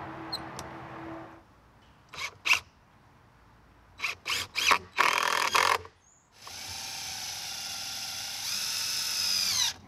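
DeWalt cordless drill/driver working into a deck skirt board: a few short trigger bursts, then a steady run of about three seconds whose pitch dips slightly near the end as it bites.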